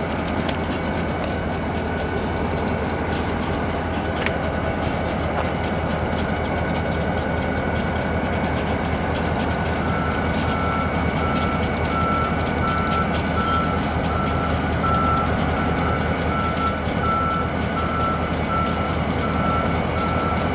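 Union Pacific EMD GP-series ("Geep") diesel locomotives running with a steady low rumble while switching cars. From about halfway through, an electronic reversing beeper sounds over it as an even, repeating high-pitched beep.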